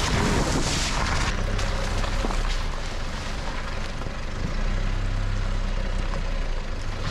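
Mitsubishi L200 pickup driving off-road, its engine running at a steady low drone, with wind noise on the microphone.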